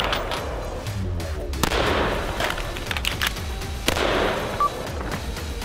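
Shots from a PWS long-stroke piston AR-15 rifle, fired irregularly in short strings and singles, over background music.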